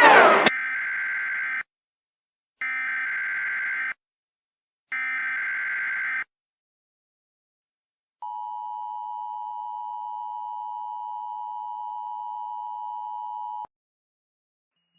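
Emergency Alert System header: three bursts of rapid digital data tones, each about a second long with short silences between them. After a pause, a single steady attention tone holds for about five and a half seconds, signalling that an emergency broadcast is about to begin. A brass fanfare cuts off in the first half second.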